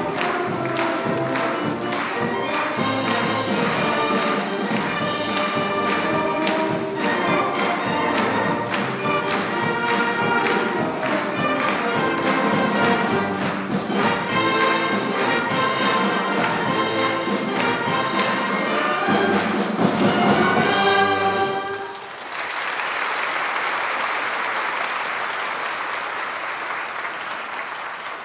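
A wind band playing a swing number, with brass over regular percussion hits, ending with a final chord about 21 seconds in. The audience then applauds, the applause slowly dying away.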